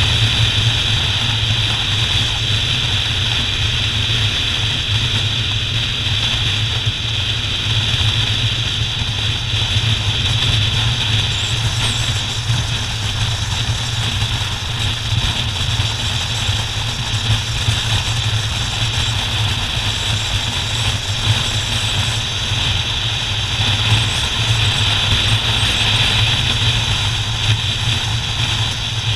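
Motorcycle riding steadily at road speed: a constant low engine hum under rushing wind and road noise, with no change in pace.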